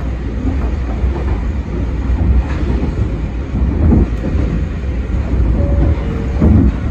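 Sangi Railway Series 801 electric train running along the line, heard inside the cab: a steady low rumble of wheels on rail with a couple of heavier knocks, one about four seconds in and another near the end.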